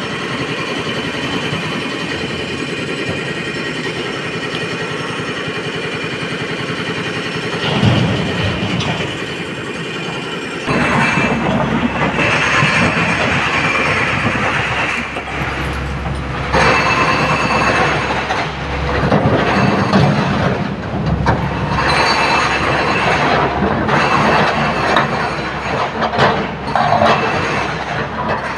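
SANY hydraulic excavator at work in broken stone: its diesel engine runs steadily, with a thump about eight seconds in. From about ten seconds on the sound grows louder and uneven, with rumbling and rock clatter as the bucket digs a load of stone.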